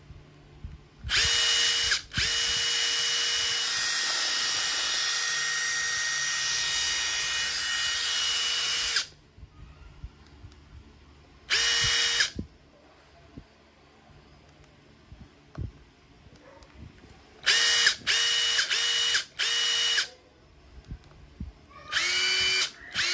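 Makita TD171D 18V brushless cordless impact driver running with no load, its motor whining without the impact mechanism hammering. It runs steadily for about eight seconds, then gives a short burst, four quick blips of the trigger, and near the end runs again at a lower speed.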